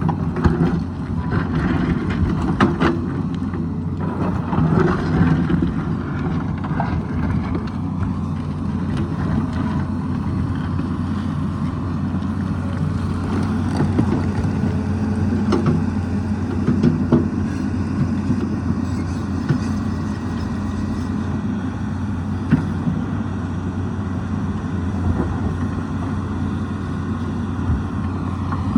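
Diesel engine of a Tata Hitachi hydraulic excavator running steadily under working load, with a few scattered sharp knocks.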